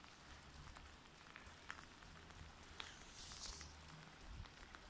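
Faint rain: scattered drops ticking over a soft hiss, with a brief louder hiss about three seconds in.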